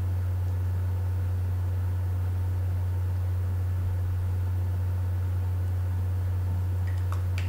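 Steady low hum with a faint hiss behind it, unchanging throughout, and a few faint clicks near the end.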